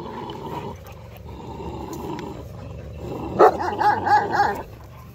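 Dogs barking: softer calls at first, then a quick burst of several loud barks about three seconds in, lasting a little over a second.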